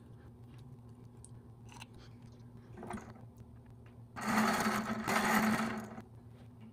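Small cordless electric screwdriver whirring for about two seconds, in two runs with a brief break, as it drives a screw into the centre of a 3D-printed crank handle. A steady low hum runs underneath.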